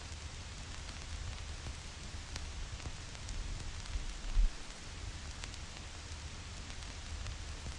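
Vinyl record crackle: a steady hiss with scattered small clicks and pops, over a low rumble. A louder low thump comes about four and a half seconds in.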